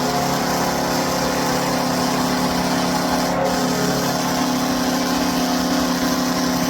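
Buffalo Sabres hockey goal horn sounding one long, continuous, steady blast.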